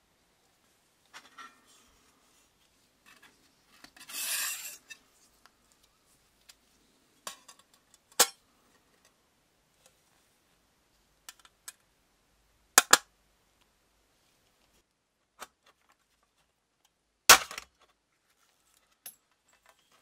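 Polished brass hand warmer handled on a wooden table: a short scrape about four seconds in, then scattered sharp clicks and knocks of the metal case, a double knock around thirteen seconds and the loudest knock near the end.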